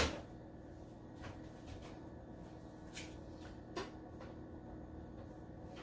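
A few faint, light knocks of a glass canister with a metal lid being nudged into place on a tray, over a faint steady hum.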